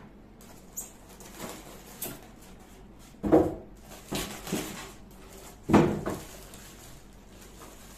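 Unboxing noises: polystyrene foam packing blocks pulled off a plastic-wrapped electric grill, with rustling and small clicks and two loud knocks, about three seconds in and again near six seconds.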